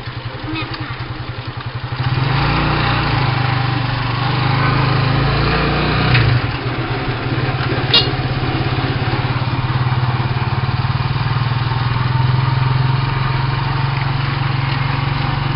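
Motorcycle engine of a sidecar tricycle running underway, heard from the sidecar, with a steady putter that gets louder and rougher with wind and road noise about two seconds in. A sharp click about eight seconds in.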